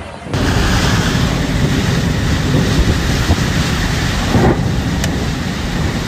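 Storm noise: a loud, steady rush of heavy rain and gusting wind on a phone's microphone, starting suddenly just after the start.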